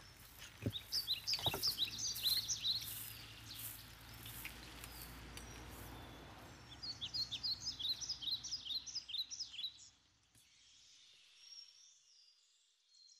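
Songbirds singing in a forest: two quick runs of short, high chirps, the first about a second in and the second about seven seconds in, over a faint rustle. There are a couple of sharp knocks near the start, and the sound drops away to something much quieter near the end.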